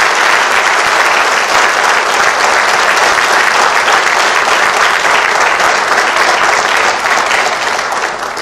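Audience clapping, a dense, steady applause that begins to die down near the end.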